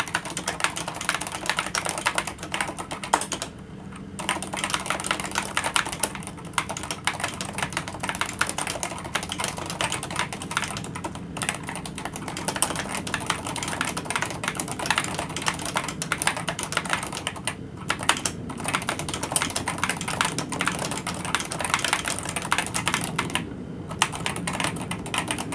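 Fast, continuous typing on a Topre Realforce 104UG high-profile keyboard, whose Topre electrostatic capacitive switches use rubber domes over springs, with a few brief pauses between bursts of keystrokes.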